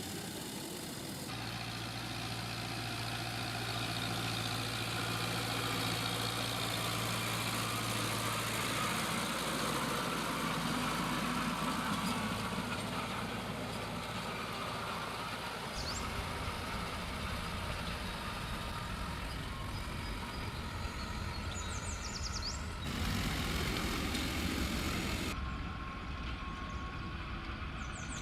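Tractor engine running steadily under load. The sound changes abruptly several times, as if different stretches of the tractor's work are cut together.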